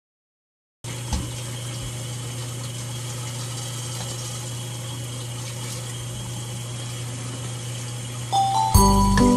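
Kitchen tap running steadily into a stainless steel sink, the stream splashing over hands rinsing food; it starts abruptly about a second in. Music comes in near the end.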